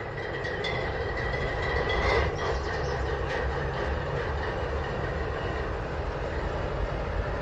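Norfolk Southern diesel-electric freight locomotive running while it stands, its engine coming up in level at the start, with a steady low rumble and a high steady whine. A few sharp clanks come in the first few seconds.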